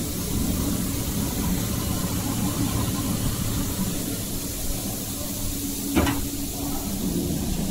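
A handheld fiber laser welding machine's cooling unit and fans running with a steady hum and hiss. There is a single sharp knock about six seconds in.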